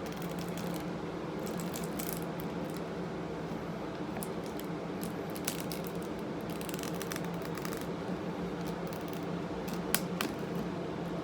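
Electric fan running with a steady hum, with scattered light clicks and rustles of objects being handled, a sharper click near the end.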